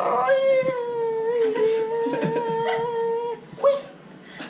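A dog howling: one long, steady howl of about three seconds, followed by a short rising yelp.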